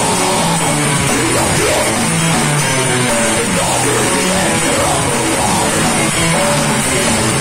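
A death metal band playing live at full volume: distorted electric guitars over a pounding drum kit, steady and unbroken.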